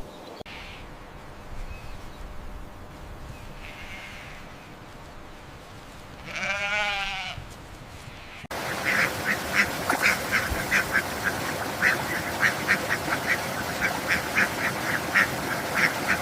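Farm animal calls: a single wavering bleat about six and a half seconds in over faint outdoor ambience. After an abrupt cut, a busy run of short, sharp calls follows, about three a second, like ducks quacking.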